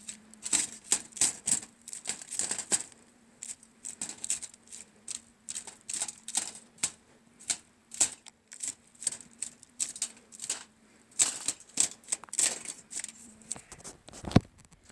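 A stick scraping and flicking hot coals off steaks, making quick, irregular scrapes and taps a few times a second.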